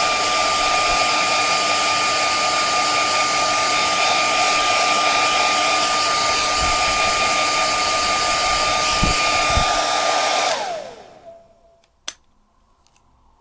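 Handheld hair dryer blowing with a steady whine over the rush of air, then switched off about ten seconds in, its motor whine falling in pitch as the fan spins down; a single click follows.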